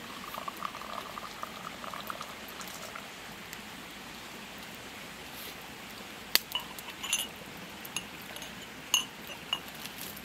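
Liquid bubbling in quick little pops for the first few seconds. Then several sharp clinks of hard kitchenware, each with a short ring, the loudest about six and nine seconds in, all over a steady hiss.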